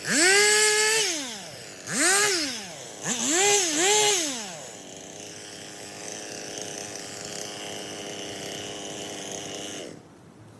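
Stihl chainsaw revving up and back down three times, the last rev with a double peak, then idling steadily for about five seconds before the engine shuts off near the end.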